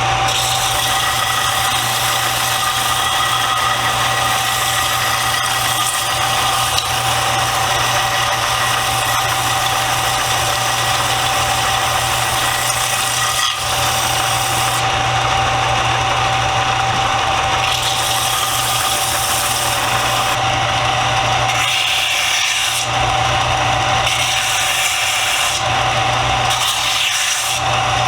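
Power sander running steadily with a constant motor tone as it grinds down a freshly epoxied wooden screwdriver handle, the wood rubbing against the abrasive.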